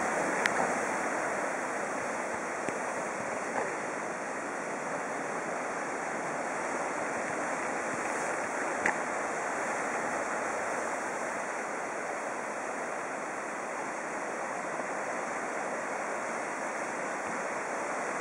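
Surf breaking and washing over a boulder and pebble shore, a steady unbroken rush. A few brief faint clicks stand out, the first one just after the start and another about nine seconds in.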